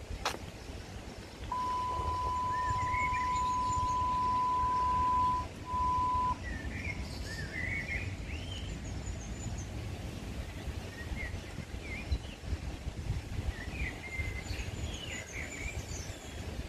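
Small birds chirping and twittering over a low outdoor rumble. About a second and a half in, a steady electronic beep sounds for about four seconds, then a short second beep.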